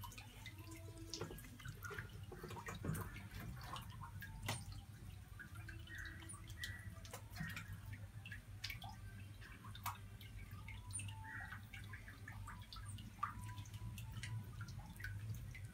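Faint, scattered water drips and small clicks over a steady low hum.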